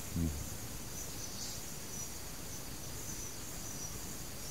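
Faint, high-pitched, steady insect trill over a background hiss, heard in a pause of the sermon. A brief low vocal sound comes just after the start.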